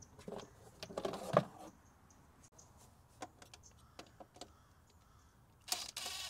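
Scattered light clicks and knocks of tools being handled, then a DeWalt cordless driver runs briefly near the end, spinning out a 10 mm engine-cover bolt.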